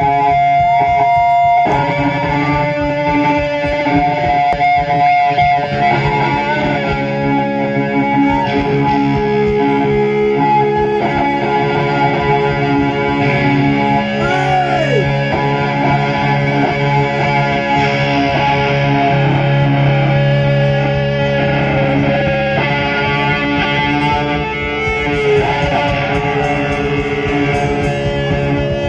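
Live rock band playing loud and steady: electric guitars, bass and drums, with a guitar bending notes about halfway through.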